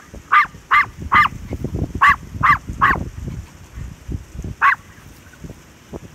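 A small Maltese dog barking in short, high-pitched yaps: a quick run of four, then three more, then a single bark about four and a half seconds in.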